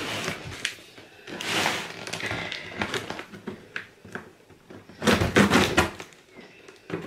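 Cardboard box and plastic packaging being handled and shifted on a table: irregular scraping and rustling with a few knocks, loudest about five seconds in.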